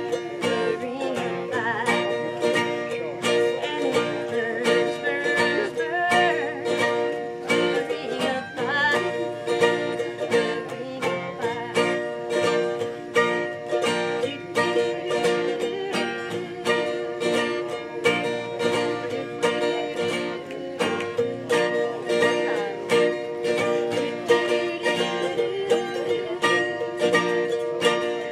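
Mandolin and acoustic guitar playing a tune together, plucked and strummed to a steady beat.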